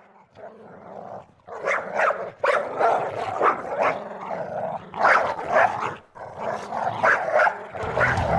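An animal's vocal sounds: a run of short, rough bursts with brief pauses between them.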